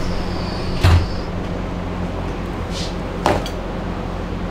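Two sharp clunks of hand tools or parts being handled, a loud one about a second in and a smaller one a little past three seconds, over a steady low hum.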